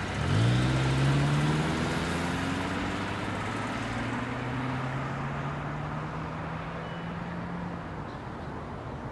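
Car engine revving as the car pulls away, its pitch climbing briefly, then running steadily and slowly fading as it drives off.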